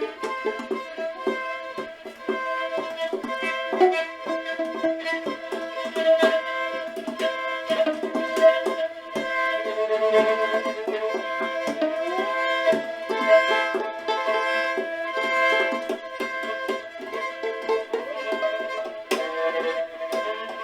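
Instrumental music: many quick, sharply struck notes over held steady tones, with no bass.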